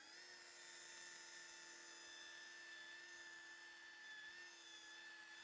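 Electric car polisher's motor running at a steady speed with a faint, steady whine, the pad working polishing paste into car paint.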